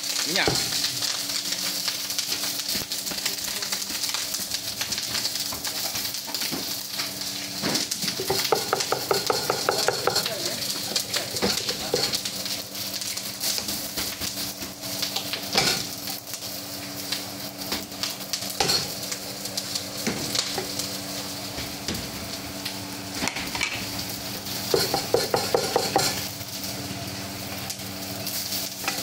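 Food sizzling in a hot wok over a gas burner, with a metal ladle stirring and scraping in it. Two runs of quick, even metal clatter come about nine seconds in and again around twenty-five seconds in.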